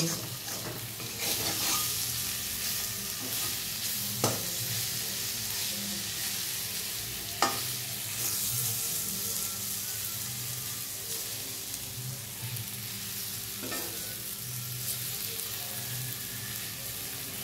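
Boiled elephant foot yam pieces frying in mustard oil in a metal kadai over low-medium heat: a steady sizzle with a flat spatula scraping and stirring them around the pan. Three sharp knocks of the spatula against the pan stand out, about four, seven and fourteen seconds in.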